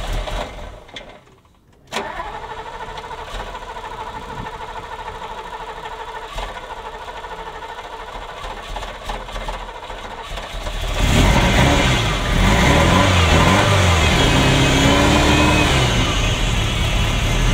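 Ferrari Mondial V8 being started: a short first burst, then a steady stretch of turning over, and about eleven seconds in it catches and runs louder, the revs rising and falling. It runs rough, misfiring on one bank (cylinders 5–8), with its ignition timing out.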